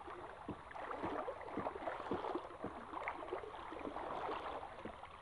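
Stream water sloshing and gurgling around people wading chest-deep through it, with many small irregular splashes.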